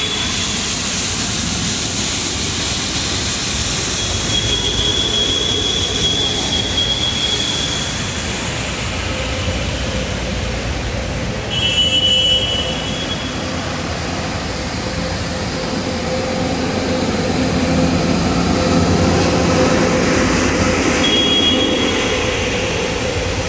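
Traffic driving through a flooded road: a steady, loud wash of engine, tyre and water noise. Brief high squealing tones come and go several times.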